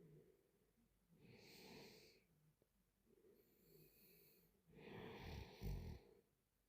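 Faint sleep breathing and snoring from a sleeping woman: three noisy breaths. The last breath, near the end, is the loudest and ends in a short low snort.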